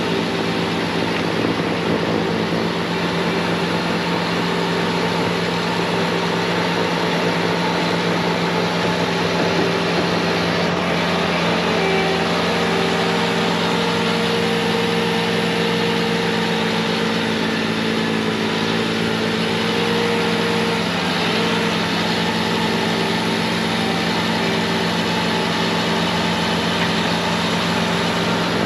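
Bobcat T66 compact track loader's diesel engine running at full throttle, driving a snowblower attachment through wet, heavy snow: a steady drone. A higher steady tone joins it for about ten seconds partway through.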